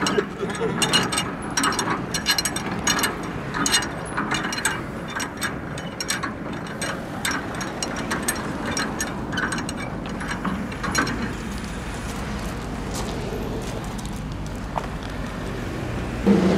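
Hand-operated ratchet mechanism clicking rapidly as a truck's steel loading ramps are cranked up. The clicking thins out after about eleven seconds.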